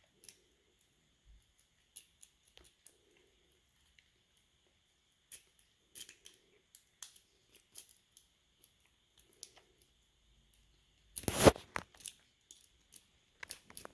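Lock-picking rake and tension bar working in a small padlock's keyway: scattered light metallic clicks and scrapes, with one much louder rattling scrape a little past eleven seconds in and a quick run of clicks near the end.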